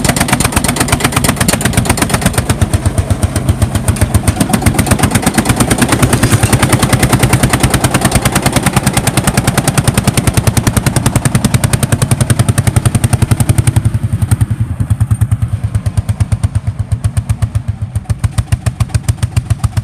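Vintage Lanz Bulldog tractor's single-cylinder engine running under load while ploughing, a rapid, even beat of exhaust thumps. It grows softer from about two-thirds of the way in as the tractor moves away.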